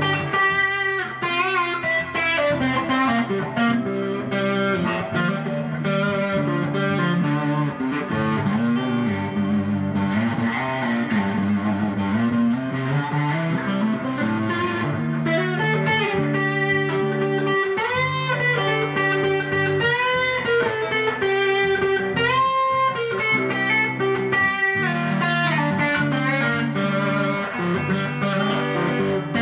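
Electric guitar playing a lead line that imitates slide guitar without a slide: notes glide up and down in pitch between phrases. Sustained low notes run underneath.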